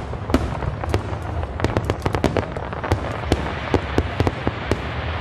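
Dense barrage of aerial fireworks: rapid, overlapping bangs and crackles, several a second, over a continuous low rumble.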